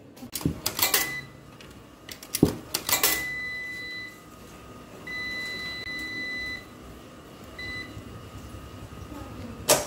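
Coins clinking and being fed into a coin-operated washing machine, then the machine's panel beeping three times: a beep of about a second, a longer one, and a short one. A single sharp click near the end.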